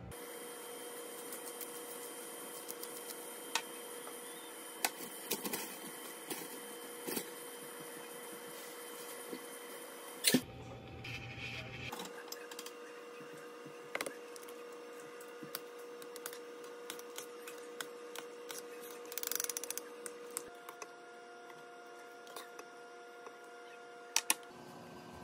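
Induction cooktop humming with a steady tone under a pot of boiling soup, with scattered small ticks and clicks from the bubbling broth and pot. The hum changes pitch about 20 seconds in, and a ladle clinks twice against the pot near the end.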